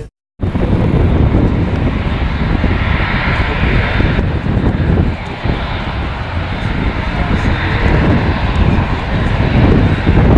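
Airbus A380's four jet engines running at high power on the runway for takeoff: loud, steady jet noise with a deep rumble and a hissing upper band that swells and eases twice.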